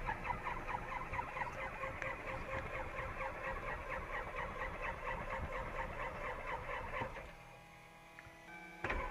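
A light aircraft's piston engine being cranked over by its electric starter in an even, rhythmic chug without catching, on an engine reluctant to start. The cranking stops about seven seconds in, followed by a click near the end.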